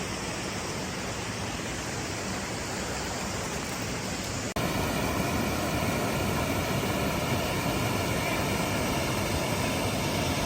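A steady rush of flowing creek water. About four and a half seconds in, it cuts abruptly to a louder steady rush.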